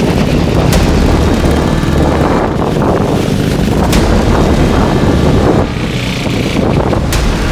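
Steady motor noise with wind buffeting the microphone, broken by a few short sharp ticks.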